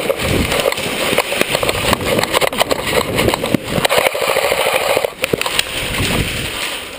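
Dense clatter of rapid clicks and knocks over a hiss, from an indoor airsoft game: rifle and gear rattling as the player moves, mixed with airsoft gunfire. The clatter is thickest between about two and four seconds in.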